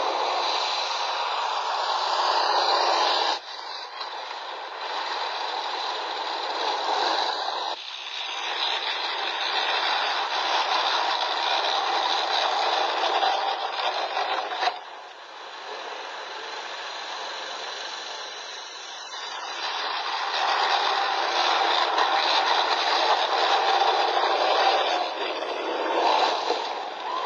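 Tank engine and tracks running hard over snow and rough ground, a dense noisy rush with rattling, breaking off abruptly and starting again about three, eight and fifteen seconds in.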